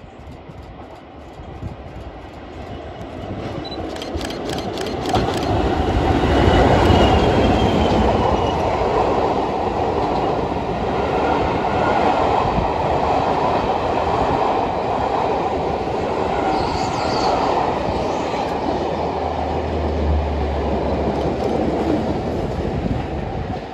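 Locomotive-hauled passenger coaches running past close by. A quick series of wheel clicks over rail joints comes a few seconds in, then a steady rolling rumble. Near the end a low, steady engine drone comes in as Class 37 diesel 37407, with its English Electric V12, passes.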